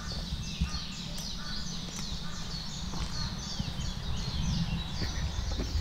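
Forest birds chirping in quick repeated high notes that fall in pitch, several a second, over a steady low rumble.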